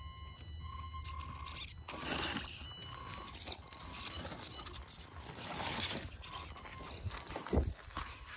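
Electric RC car driving over a dirt trail: a thin, steady whine from its motor comes and goes in short spurts, then gives way to scrabbling and rustling of tyres over dirt and brush, with one sharp thump near the end.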